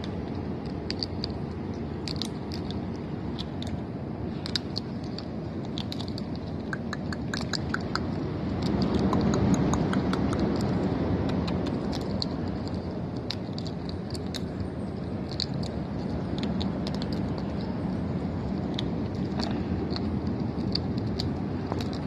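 Scarlet macaws cracking sunflower seeds with their beaks: irregular sharp cracks and crunches over a steady low background rumble.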